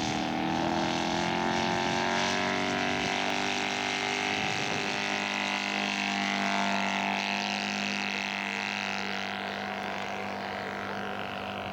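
Radio-control scale model airplane's engine running at high throttle in flight, a steady buzzing drone that drops in pitch about four to five seconds in.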